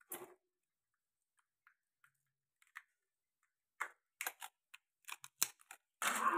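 Raw crab pieces handled in a stainless steel bowl: short clicks and crackles of shell, sparse at first and coming thicker from about four seconds in, with the loudest cluster near the end.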